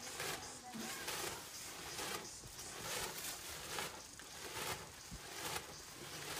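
Sugarcane juice boiling in a wide open iron pan for jaggery, with repeated swishing splashes about every three-quarters of a second as a perforated ladle lifts the juice and pours it back.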